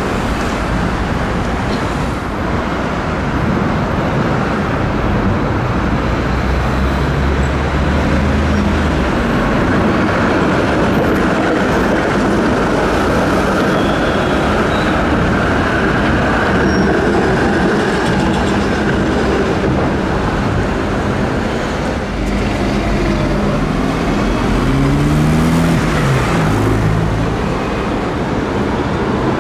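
City street traffic: car and bus engines running and trams rolling past on their rails, a steady mix of engine and wheel noise. About three-quarters through, an engine rises in pitch as a vehicle pulls away.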